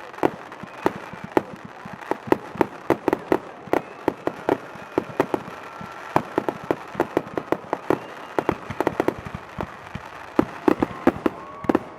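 Fireworks going off in a long, unbroken barrage: sharp irregular pops and bangs, several a second, with faint thin whistling tones running beneath them.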